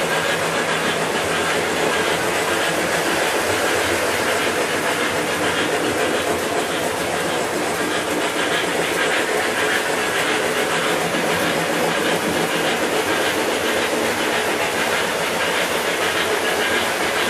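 O-gauge three-rail model trains running together on a spiral layout: a steady rumble and whir of motors and wheels on the track, with a hiss above it.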